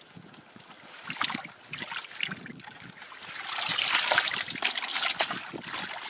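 Hands sloshing and scooping through shallow muddy water and mud, a run of wet splashes and crackles that grows louder in the second half.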